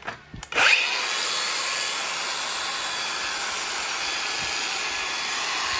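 Makita DGA504 18V brushless cordless angle grinder switched on with a click, its motor spinning up quickly about half a second in and then running steady at no load with a high whine.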